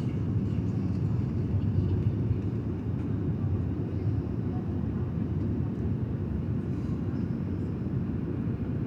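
Steady low roar of cabin noise inside a jet airliner, the engines and rushing airflow heard from a window seat as the plane descends toward landing.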